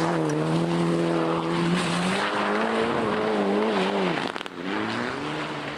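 Rally car engine running hard over a steady rush of road and tyre noise; its note holds level, then wavers, drops away briefly about four seconds in and climbs again.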